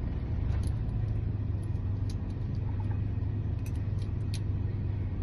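Steady low engine rumble, like an idling vehicle, with a few faint light ticks of small metal parts being handled.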